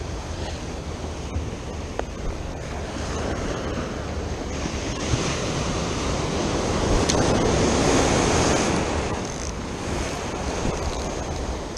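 Ocean surf washing and breaking on the beach, with wind buffeting the microphone. The surf swells louder with a breaking wave about six to nine seconds in.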